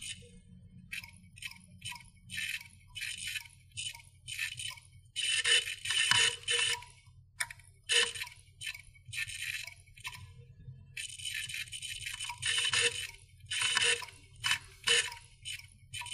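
Irregular bursts of rattling and clinking, like small metal pieces being shaken, over a faint low hum.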